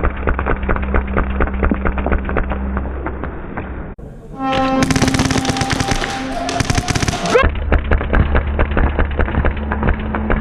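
Music with dense, rapid clicks like airsoft gunfire running through it. About four seconds in, a short full-range piece with held tones cuts in, ending in a rising glide, and then the first sound returns.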